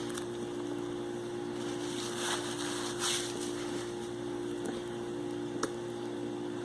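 Steady mechanical hum, with a few brief soft noises of someone chewing a bite of a sandwich about two and three seconds in.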